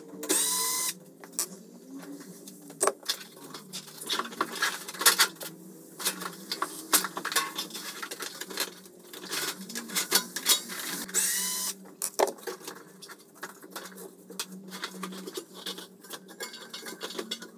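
Hands working the drive belt off a Bosch tumble dryer's drum through the open back: irregular clicks, knocks and rattles of the sheet-metal housing and rubber belt, with a few brief squeaks near the start and about twelve seconds in.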